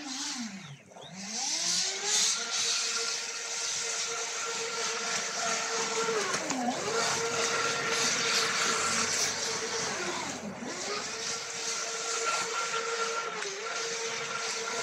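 Joysway US-1 radio-controlled speedboat's electric motor whining at speed over the rushing hiss of water off the hull. Its pitch sinks and climbs back about four times as the throttle is eased off and opened again through the turns.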